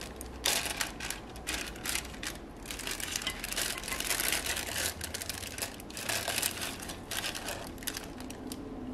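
Clear plastic zip-lock bag crinkling and rustling in gloved hands as it is opened and handled, an uneven run of crackles.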